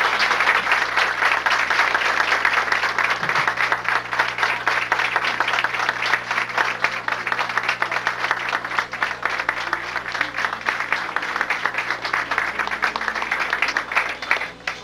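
A crowd applauding, dense steady clapping that breaks off abruptly just before the end, over a steady low hum.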